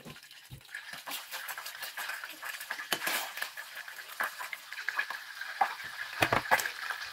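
Melted butter and oil frying in a small stainless steel saucepan, the sizzle growing louder as the fat heats up to brown. A spoon stirs through it and clinks against the pan several times, loudest near the end.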